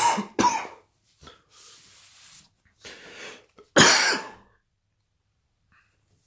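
A man's coughing fit into his fist, set off by straining his throat with a hoarse shout: several harsh coughs with breaths between them, the loudest about four seconds in.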